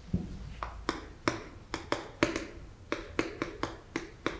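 Chalk clicking and tapping on a chalkboard while characters are written: a quick, irregular run of short sharp clicks, several a second.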